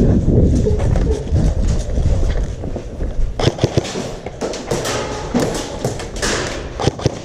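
Airsoft guns firing in quick bursts of sharp clicks and pops from about three and a half seconds in, after a low rumble of movement and handling on the microphone.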